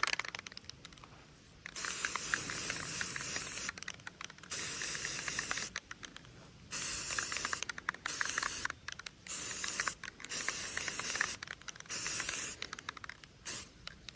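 Aerosol spray can of green paint sprayed in a string of short hissing bursts, each about a second long with brief pauses between, laying paint over netting on a rifle.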